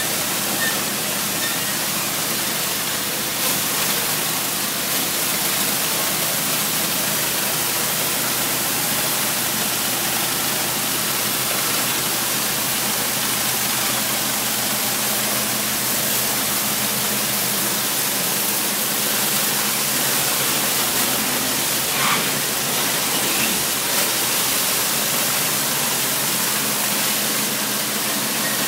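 High-pressure rotary surface cleaner blasting hot water onto concrete, its spray and vacuum recovery making a loud, steady hiss with a low machine hum underneath.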